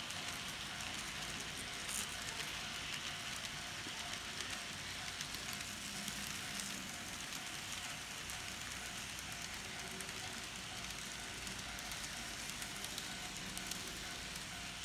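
N scale freight train rolling past on the layout track: a steady light rattle and fine clicking of many small wheels on the rails, with a faint steady hum.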